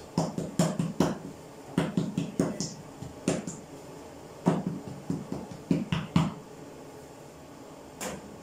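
Hands patting and slapping soft bread dough on a floured wooden board: a run of thumps in quick clusters, which stops about six seconds in, then a single light knock near the end.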